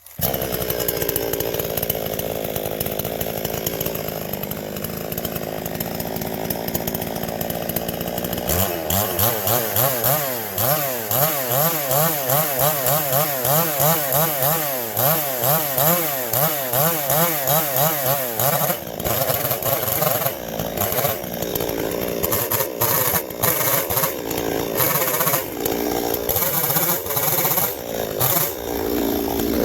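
Chainsaw running hard, shaving a bump off the top of a log with the bar held flat against it. Through the middle stretch the engine speed rises and falls about twice a second as the bar is worked across the wood, then it runs more evenly again.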